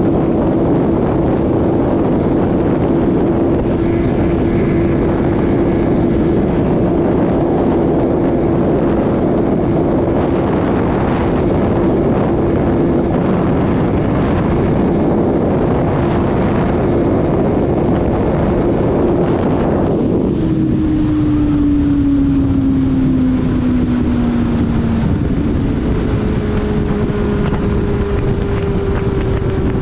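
Kawasaki Z750 inline-four motorcycle engine cruising at steady revs with wind rushing over the microphone. About two-thirds through the wind drops away as the throttle is rolled off and the engine note falls while the bike slows, then a downshift brings the revs back up to a higher, slowly falling note.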